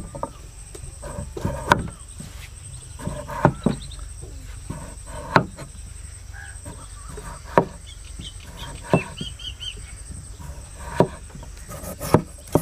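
Cleaver slicing through peeled raw potatoes and striking a wooden chopping board, one sharp knock every second or two.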